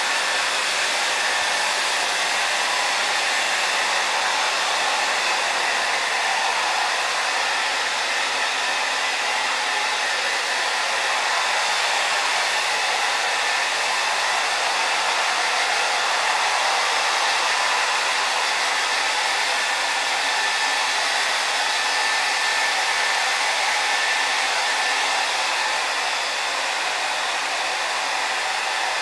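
Handheld electric hair dryer running steadily, a continuous rush of blown air with a faint high whine in it.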